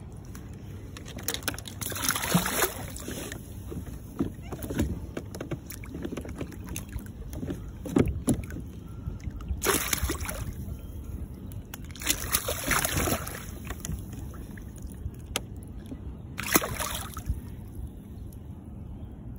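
Water sloshing and splashing against the side of a kayak in several short bursts, with sharp knocks and clicks from handling on the hull.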